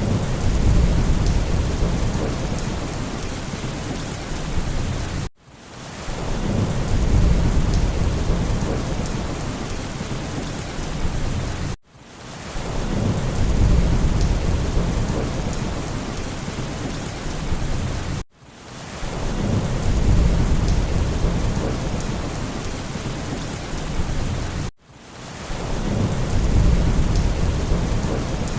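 Steady heavy rain with low rolling thunder that swells up about every six and a half seconds. The sound cuts out for an instant and starts over each time: a short rain-and-thunder recording looped again and again.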